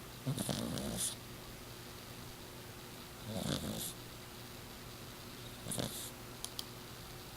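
Exotic shorthair Persian cat snoring in her sleep: three loud snoring breaths about two and a half seconds apart, the last one shorter.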